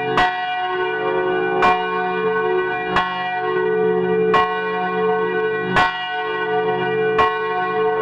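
A single swinging church bell tolling, its clapper striking six times about a second and a half apart. Each stroke rings on into the next.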